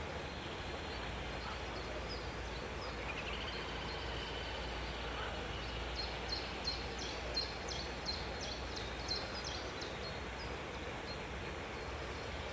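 Cage birds chirping: many short, high chirps, thickest in a quick run from about six to nine seconds in, with one gliding whistle early on, over a steady background hiss.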